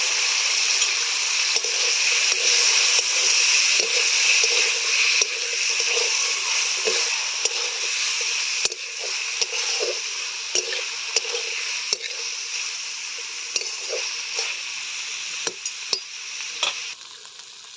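Potato sticks frying in mustard oil and spice paste in a kadai, sizzling steadily, while a steel spatula stirs them with scattered scrapes and clinks against the pan. The sizzle drops away sharply near the end.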